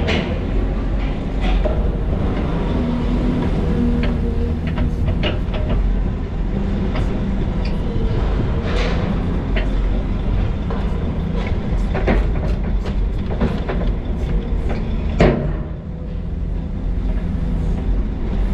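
Heavy diesel machinery running steadily at work, with irregular metallic clanks and knocks of steel on steel; the loudest knock comes about three-quarters of the way through.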